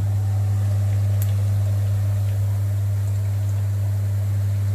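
A steady low hum, the loudest sound, over the faint sizzle of meatballs frying in a pan of hot oil.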